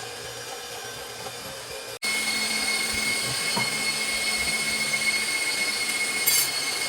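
Electric mixer whipping heavy cream, its motor whirring steadily. After an abrupt cut about two seconds in, it runs louder with a high steady whine.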